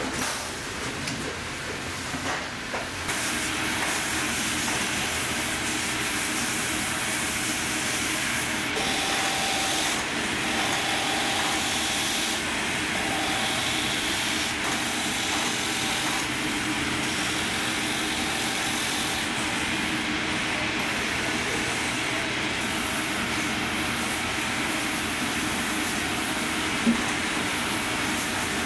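Sole-finishing sanding machine running steadily, making a continuous rushing noise as a boot's rubber lug sole is ground against its sanding wheel. There are a few knocks in the first seconds and a single sharp click near the end.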